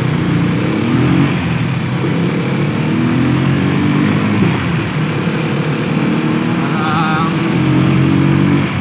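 Small vehicle engine running under way, its pitch rising as it accelerates a couple of times and then holding steady.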